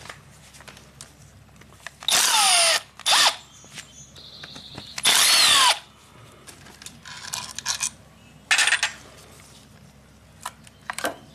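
Handheld electric drill/driver run in several short bursts, its motor pitch falling as it slows at the end of each, while backing out the screws of a motorcycle engine cover. Three bursts are loud, about two, three and five seconds in, and two shorter, fainter ones follow.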